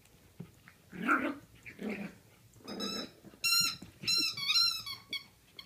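Puppies play-fighting: a few short low growls, then from about three seconds in a run of about four high, wavering squeaks.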